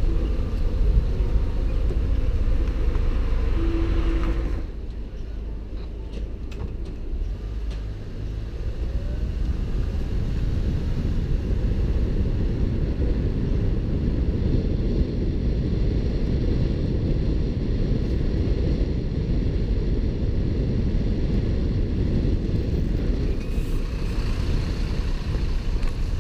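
A car driving on a wet road: steady low road and engine noise, dropping off a little about four and a half seconds in and building up again from around eight seconds.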